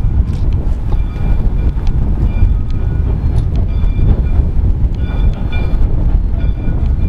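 Train rolling past close by, the Soo Line 1003 steam-hauled charter train: a heavy, steady rumble of wheels on rail with scattered clanks and short high-pitched squeals from the wheels.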